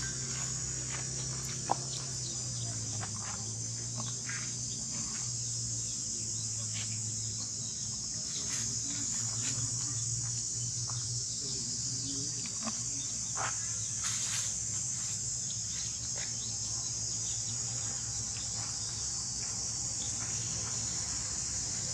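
Steady, high-pitched chorus of insects buzzing without pause, with scattered faint ticks and clicks.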